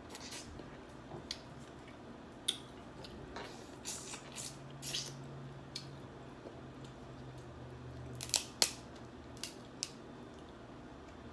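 Snow crab leg shells cracking and snapping as they are broken apart by hand, with wet squishing as the meat is pulled out; scattered sharp cracks, the two loudest about eight seconds in.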